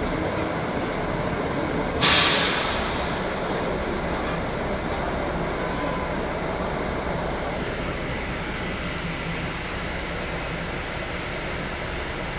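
City bus running steadily, with a sudden sharp hiss of compressed air from the bus's pneumatics about two seconds in, fading away over a second or so.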